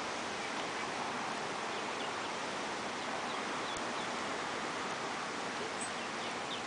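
Ducklings peeping faintly in short high chirps, a run of them about a second and a half in and more near the end, over a steady outdoor hiss.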